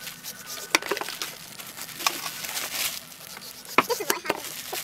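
A knife paring the rind off a whole watermelon: a few sharp crunching cuts with scraping strokes in between as the blade slides through the rind.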